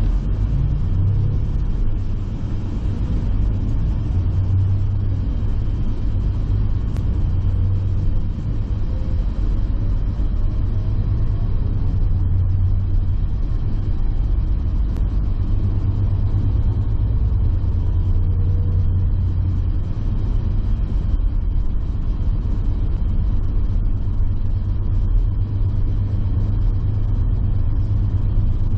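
Tour bus driving, heard from inside the cabin: a steady low rumble of engine and road noise.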